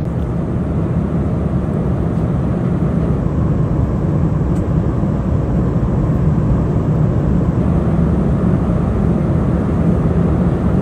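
Steady, even cabin noise of an airliner in flight: jet engine and airflow drone, heaviest in the low end.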